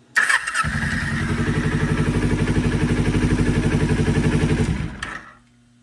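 Kawasaki Ninja 250's parallel-twin engine started on the starter, catching within about half a second and running steadily with an even pulse. About five seconds in it is switched off and dies out quickly. The ignition is being run through a toggle switch wired in place of the original ignition switch.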